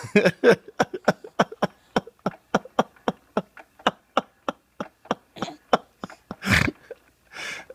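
A rapid run of short mouth clicks at about four a second, with one louder breathy burst about six and a half seconds in.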